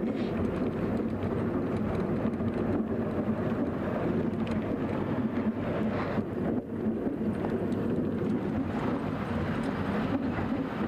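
Steady engine and road noise of a vehicle driving along a dirt road, heard from inside the cab.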